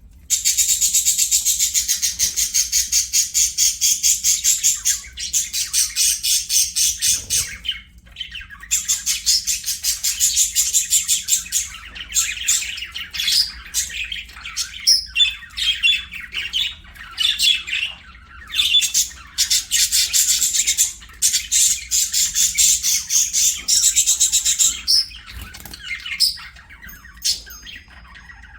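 Budgerigars chattering and warbling: long runs of rapid, high, pulsing chirps broken by short pauses, with the odd squawk.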